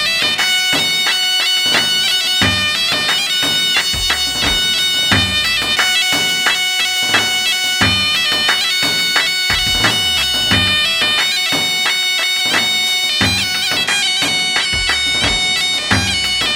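Loud music of a reedy wind instrument playing sustained, droning notes over a steady drum beat.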